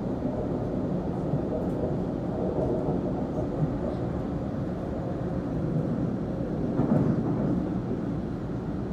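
Sydney Trains A-set (Waratah) electric train running, a steady rumble of wheels on rails and traction equipment heard from inside the carriage.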